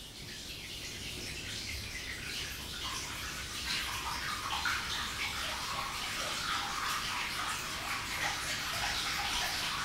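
Hot water pouring into a bathtub during a gas water heater's automatic bath fill: a steady rushing, splashing hiss that grows slowly louder.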